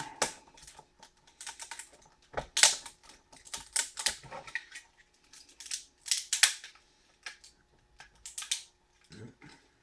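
Prying apart the core of a CRT deflection yoke: an uneven run of sharp clicks, scrapes and small knocks as the pieces are worked loose, the loudest knocks about two and a half seconds and six seconds in.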